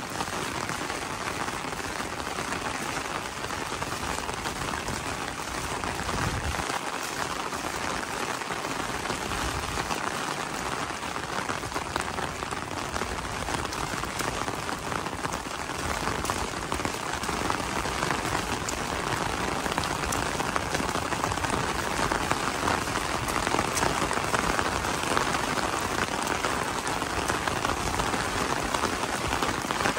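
Rain falling on an umbrella held just overhead: many small drops striking the fabric in a dense, steady stream. It gets a little heavier after about halfway.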